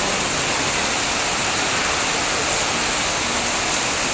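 Heavy rain pouring steadily, with water streaming off the roof eaves onto wet stone paving.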